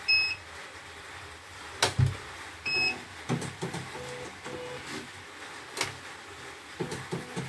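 CNY E900 computerized embroidery machine: two short electronic beeps from its control panel, a few sharp clicks, and short bursts of its motor and needle mechanism moving.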